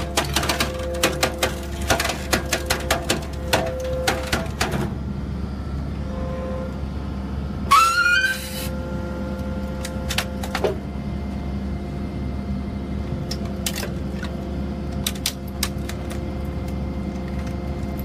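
Hydraulic scrap metal baler running with a steady hum, with rapid metallic clicking and clattering through the first few seconds. About eight seconds in comes a short rising metal squeal, the loudest sound, then scattered clicks.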